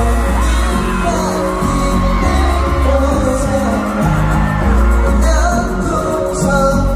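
K-pop song played live through an arena PA: a male vocalist singing over the backing track with a strong bass beat.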